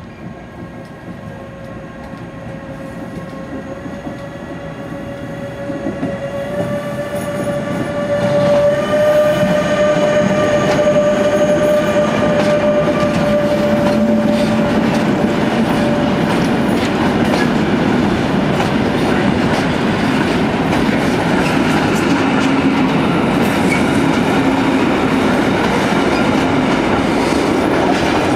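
An electric freight train approaches and its container wagons roll past close by, with rumble and wheel clatter. The sound grows louder over the first several seconds, then holds steady as the wagons pass. Early on a steady whining tone sounds over it, rising slightly in pitch, and it fades out about halfway through.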